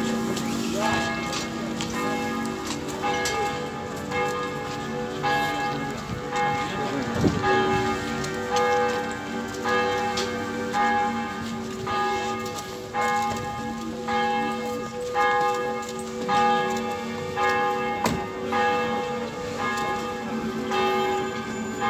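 Church bells tolling for a funeral, struck about once a second, several bell tones ringing on and overlapping.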